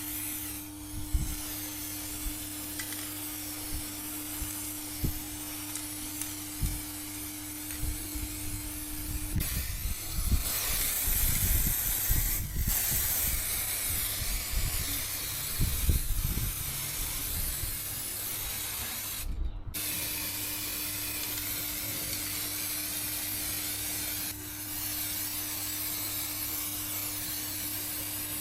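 A steady hissing noise with a faint hum and scattered knocks and thuds, which grow busier and louder through the middle before dying back.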